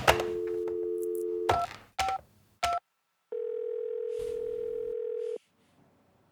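Telephone tones: a click, a steady tone, three short beeps, then a long line tone of about two seconds that stops and starts again near the end.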